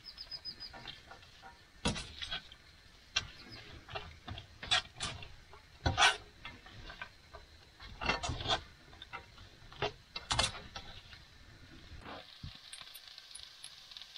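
Spaghetti server stirring and tossing spaghetti in a frying pan, with irregular scrapes and knocks of the utensil against the pan. A faint steady sizzling hiss comes in near the end.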